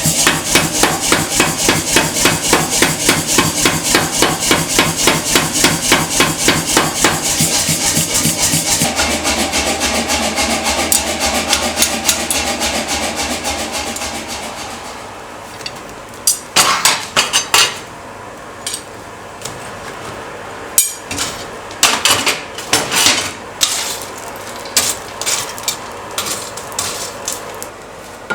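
Power hammer forging steel in a fast, even rhythm over its running motor, slowing and stopping about halfway through. Then separate, irregular hammer blows on steel and anvil.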